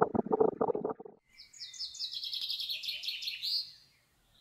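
Storm wind and rain on a webcam microphone, played sixteen times faster, a dense choppy rumble that stops about a second in. After a short pause a bird twitters for about two and a half seconds, a quick run of high chirping notes, as a logo jingle.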